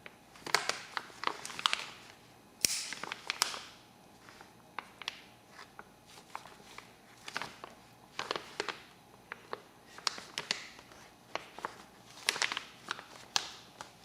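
A plastic bag crinkling and rustling in irregular bursts as hands work inside it, with sharp little clicks and taps in between.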